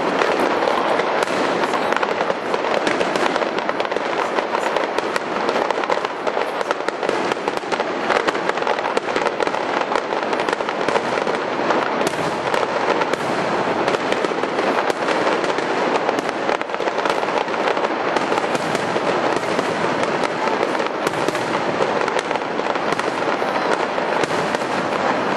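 Aerial fireworks shells bursting in rapid succession: a dense, unbroken barrage of overlapping bangs and crackles.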